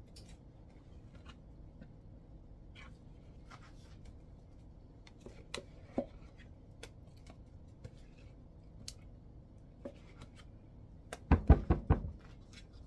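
Plastic spatula scooping whipped topping out of a plastic tub, with faint scrapes and scattered light clicks, then a quick run of loud knocks near the end.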